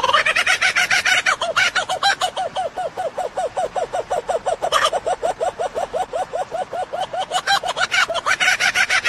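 A bird calling in a long, fast series of short repeated notes, about six or seven a second.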